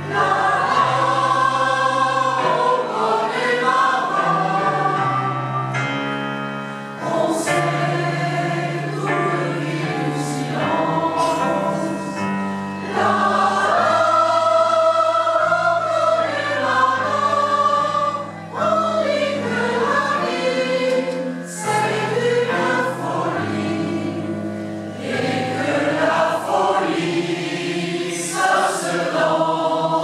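Mixed choir of women's and men's voices singing in parts, phrase after phrase with short breaths between, in the reverberant space of a stone church.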